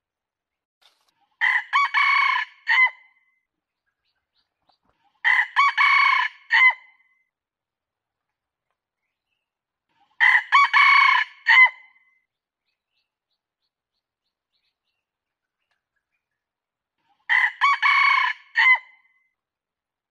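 Red junglefowl rooster crowing four times, each crow about a second and a half long and broken into a few clipped notes, with several seconds of silence between. It is a lure call used to draw wild junglefowl.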